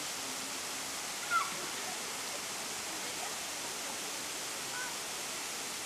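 Steady rushing of waterfalls pouring into a pool, with a brief high call about a second and a half in.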